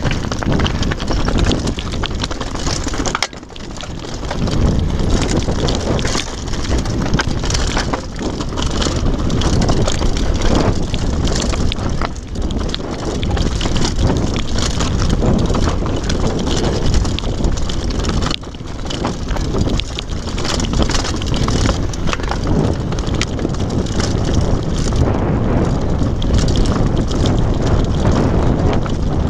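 Downhill mountain bike riding over loose scree and rock: tyres crunching on stones and the bike rattling and knocking over the bumps, with wind buffeting the microphone. A brief quieter dip comes a few seconds in.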